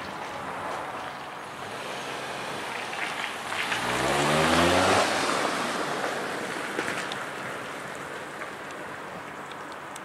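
A motor vehicle driving past: tyre and engine noise swell to a peak about four to five seconds in, the engine note rising as it speeds up, then fade away slowly.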